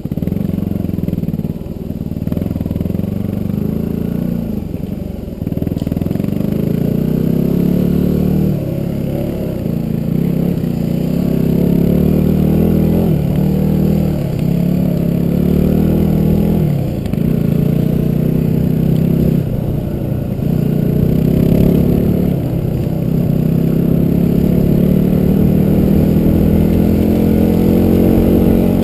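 Motor vehicle engine running under load, its revs dipping briefly and picking up again every few seconds.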